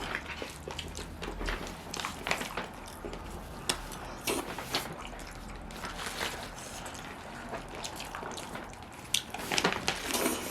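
Wet eating sounds close to the microphone: chewing and lip smacks on buttery seafood, as a run of short, irregular smacks and clicks, thicker near the end.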